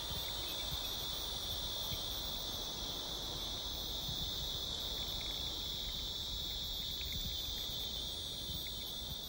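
Steady high-pitched chorus of insects, unbroken, over a low rumble.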